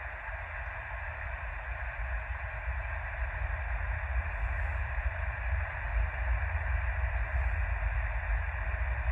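AM radio receiver playing dead air after an emergency alert test: a steady hiss of static with a strong low rumble underneath and no program audio.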